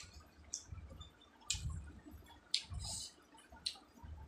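Close-miked chewing of a mouthful of rice eaten by hand, with sharp wet mouth clicks and smacks about once a second over soft low chewing thuds.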